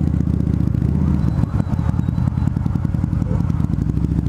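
Harley-Davidson V-Rod Muscle's liquid-cooled Revolution V-twin, breathing through Vance & Hines Competition Series slip-on mufflers, running at low, steady revs as the bike rolls slowly through traffic, with a steady rapid exhaust pulse.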